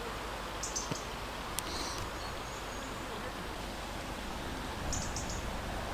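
Steady outdoor background noise with a few short, high chirps from small birds, about a second in and again near the end, and a couple of faint clicks.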